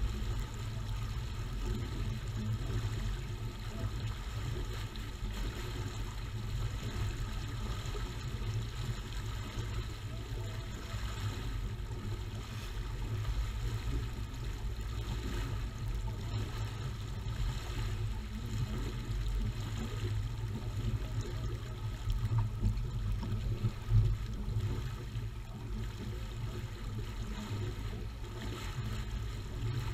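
Water rushing and gurgling along the hull of a J-35 sailboat under sail, over a steady low rumble of wind on the microphone, with one brief louder moment about two-thirds of the way through.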